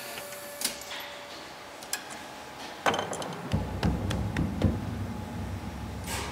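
Piano strings being handled on a grand piano's cast-iron frame: scattered sharp metallic clicks and ticks of wire against the pins, then from about three and a half seconds a low rumble with a few dull knocks as a gloved hand presses down on the strings.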